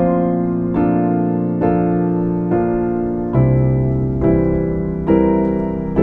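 Soft, slow piano music: chords struck about every second, each ringing and fading before the next.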